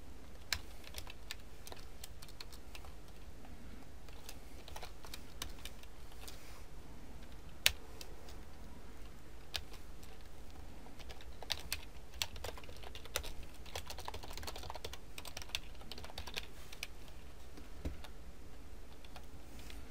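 Computer keyboard typing: irregular, scattered keystrokes with pauses, one click noticeably louder about eight seconds in, over a steady low hum.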